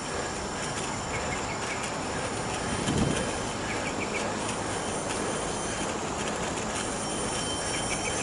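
Steady rush of wind and tyre noise on a helmet-mounted action cam riding a bicycle, with a brief low gust about three seconds in.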